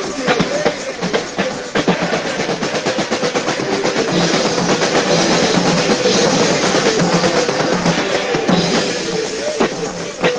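Live band music driven by a drum kit with cymbals and a pair of Meinl conga drums played by hand, in a dense, continuous beat with sustained pitched instruments or voices underneath.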